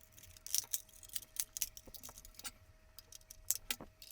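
Irregular light clicks and taps of small plastic parts being handled and fitted together as the climate control unit is reassembled by hand, with a faint steady tone underneath.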